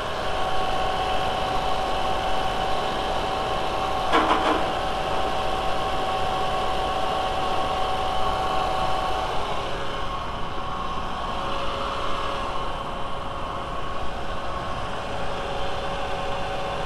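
VW 1.8T turbocharged four-cylinder engine idling steadily while it warms up and the cooling system is bled of air, with a single brief knock about four seconds in.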